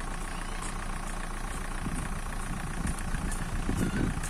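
Steady low hum of an idling engine, with a few louder low rumbles about two seconds and four seconds in.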